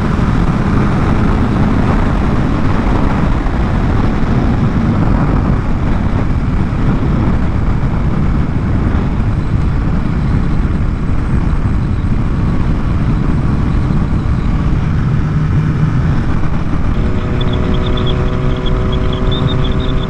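BMW S1000RR inline-four sport bike engine running under way at road speed, heard from the rider's helmet mic with steady wind rush. About three-quarters of the way through, a set of steadier droning tones sets in over it.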